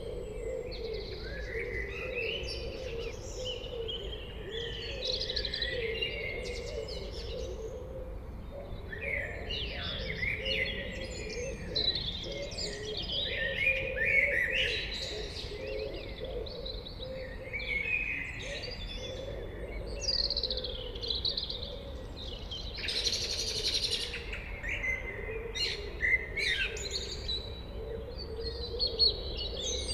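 Blackbird singing, a run of warbled, fluty phrases broken by short pauses, over a steady low hum. A brief rushing noise comes about two-thirds of the way through.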